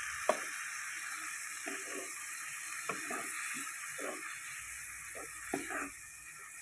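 Shelled mussels and chillies sizzling in a hot wok with a little added water, a steady hiss, while a wooden spatula scrapes and stirs them in irregular strokes.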